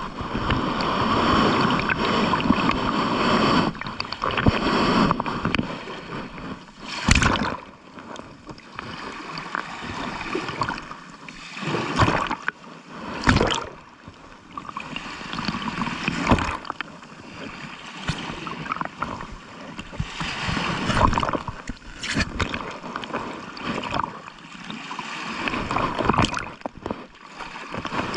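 Ocean waves breaking and washing on a shore: a continuous rushing, surging and ebbing, with several sharp splashing crashes a few seconds apart.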